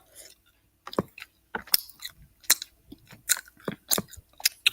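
Someone chewing Sour Patch Kids gummy candy close to the microphone, making irregular wet clicks and smacks about two or three times a second.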